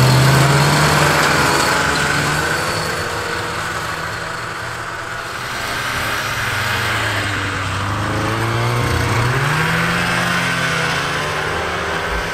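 Two vintage two-stroke snowmobiles, a Polaris Mustang and an Arctic Cat Enticer weak on one cylinder, accelerating hard in a drag race. Their engine note fades as they pull away, then grows louder again and climbs in pitch about seven to ten seconds in.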